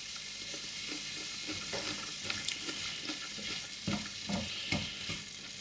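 Diced carrots, leeks and celery sizzling steadily as they sweat in olive oil in a frying pan, with a wooden spoon scraping and knocking against the pan as they are stirred, most often in the second half.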